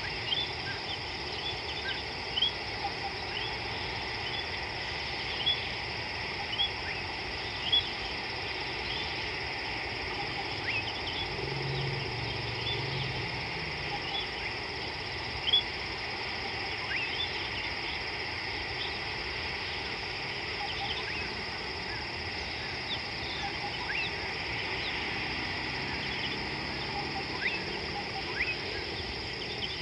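Riverside bush ambience: many short, rising high chirps from birds over a steady high drone of insects.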